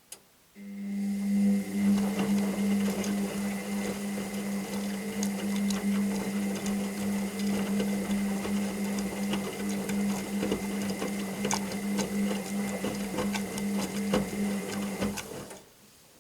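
Washing machine drum motor switching on with a click and running with a steady hum, a thin high whine and scattered light ticks for about fifteen seconds, then stopping. It is one tumbling stroke of the wash cycle, with the drum at rest before and after.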